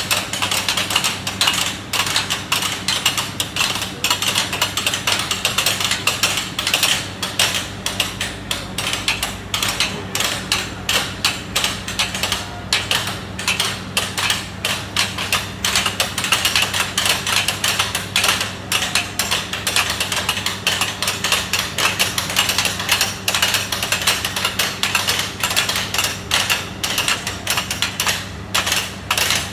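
Construction-site clatter: many quick, irregular metallic knocks and clicks, several a second, over a steady low hum.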